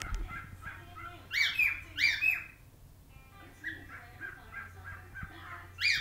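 Whiteface cockatiel singing: a soft, chattering warble, broken by loud, shrill whistled calls about a second and two seconds in and again at the very end.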